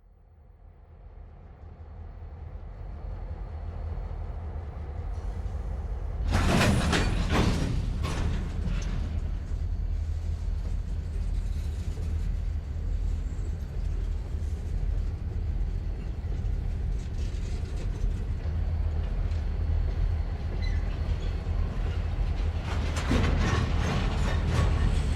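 Railway yard: a steady low rumble of railway cars that fades in over the first few seconds. Bursts of sharp clanking come about six seconds in and again near the end.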